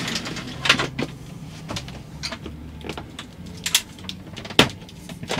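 Clicks and knocks of a hanging projection screen being handled by its frame, the loudest a little over four and a half seconds in, over a low steady hum.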